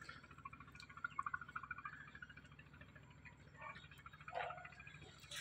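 Faint animal calls: a quick chattering series, then a short call about four seconds in, over a steady low hum.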